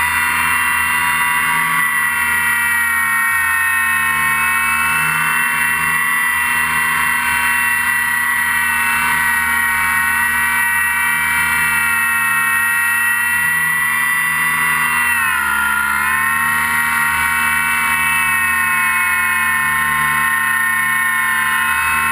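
RC plane's motor and propeller running steadily under throttle, heard from on board, with a steady high whine. The pitch dips briefly about two-thirds of the way through and begins to fall near the end as the throttle eases.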